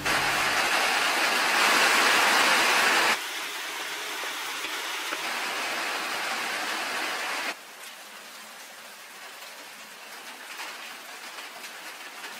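Steady rain falling, an even hiss with no distinct drops or knocks. It drops suddenly in level twice, about three seconds in and again about seven and a half seconds in.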